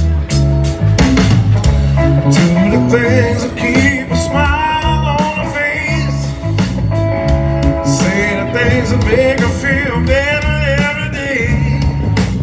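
Live blues-rock band playing: electric guitar, bass and drums, with a steady stepping bass line and a wavering lead melody above it that comes in twice.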